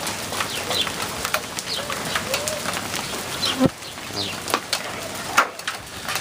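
Large hailstones and rain pelting down, individual stones striking with sharp cracks over a steady hiss. The two loudest strikes come about three and a half and five and a half seconds in.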